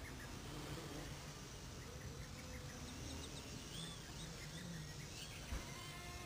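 Small quadcopter's motors heard faintly, a thin whine that rises and falls in pitch with the throttle. A brief low thump comes about five and a half seconds in.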